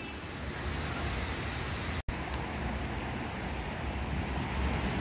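Steady outdoor rumble of distant road traffic, with a brief silent gap about two seconds in.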